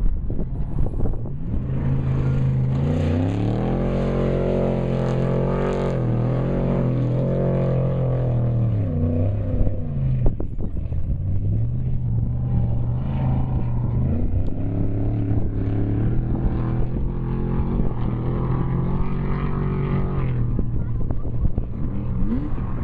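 Off-road race vehicle's engine under hard throttle. Its pitch climbs and holds, drops off about eight seconds in, then climbs and holds again before falling away near the end.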